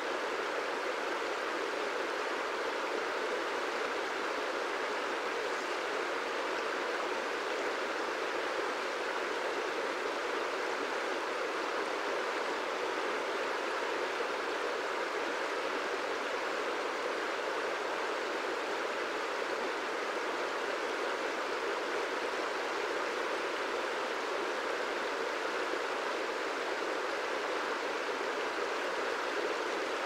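Wide river flowing, a steady, even rush of water over its rippling surface.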